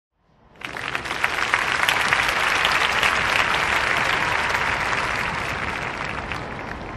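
Audience applauding with many scattered hand claps, swelling in about half a second in and easing off slightly toward the end.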